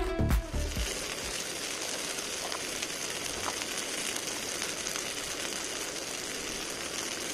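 Meat and halved tomatoes sizzling in a grill pan over a camping gas stove: a steady, even hiss, with a couple of faint pops.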